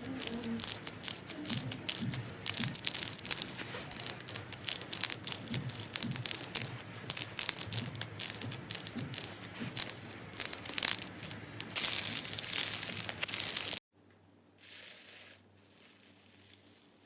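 Slime being squeezed and stretched by hand, giving a dense run of sticky crackling pops. It cuts off abruptly near the end, leaving only a faint brief rustle.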